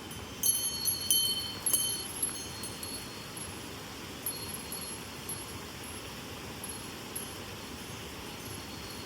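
Metallic chiming: three bright rings in the first two seconds, then lighter tinkles that die away by about the middle. Underneath is a steady rush of mountain-stream water.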